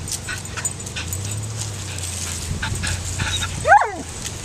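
A dog gives one short, high whining yelp, falling in pitch, near the end, with light ticks and rustles of paws moving over dirt and dry leaves before it.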